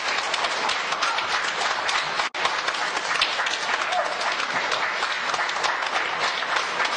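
Large audience applauding steadily with dense clapping, broken by a split-second dropout about two seconds in.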